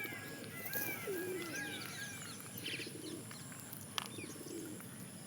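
Birds calling: low cooing calls recurring every second or two, and a run of short arched chirps early on. There is a single sharp click about four seconds in.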